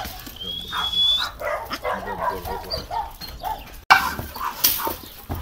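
A dog yipping and whining in short calls, with a thin high whistle-like tone about half a second in.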